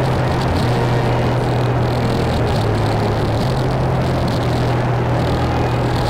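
Dark ambient drone music: a dense, unbroken wall of distorted noise over low held tones that step to a new pitch every second or two.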